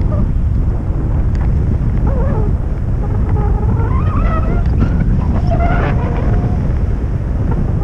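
Wind buffeting the microphone in a steady rumble, with several faint wavering, gliding calls or whistles over it for a few seconds midway.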